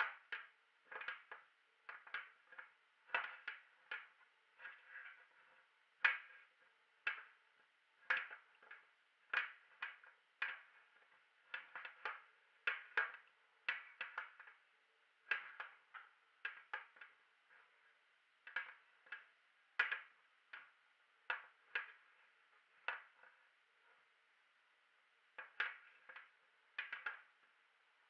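Studded soccer cleats stomping on and grinding apple pieces against a hard, clear surface: a string of sharp, irregular knocks, about one or two a second, with a short pause shortly before the end.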